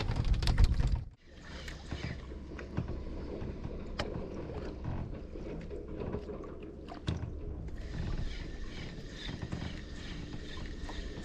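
Water sloshing and lapping against the hull of a small wooden outrigger boat, with wind on the microphone. A loud low rumble cuts off abruptly about a second in. A sharp click comes at about four seconds.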